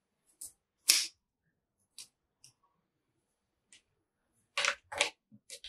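Hands handling long hair: a series of short, irregular clicks and rustles, the loudest about a second in and a quick cluster near the end.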